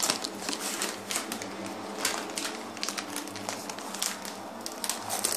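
Close handling noise: irregular light clicks, taps and rustles as toys and paper tags are handled right by the microphone.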